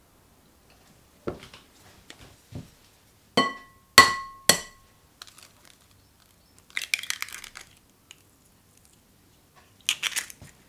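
Three sharp taps on a glass mixing bowl, each ringing briefly, the middle one loudest. Then an eggshell crackles as it is split open by hand, with a second short crackle near the end as the egg drops into the bowl.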